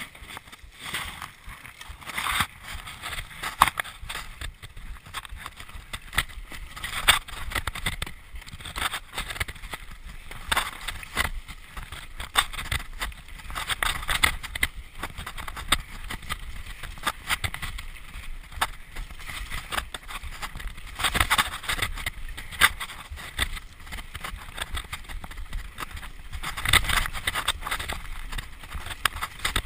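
Mountain bike riding fast down a rough dirt trail: continuous tyre noise on the dirt with frequent irregular knocks and rattles of the bike over bumps, roots and stones.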